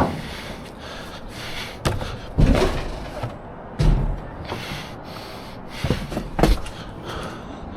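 A series of heavy thuds and clunks, about six over several seconds, as scrap items are dropped and loaded into a truck.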